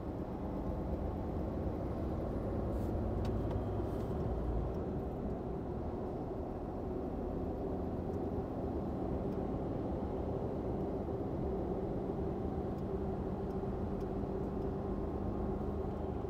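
Hino Profia heavy truck's diesel engine running steadily under way, with road noise, heard from inside the cab as a steady low hum.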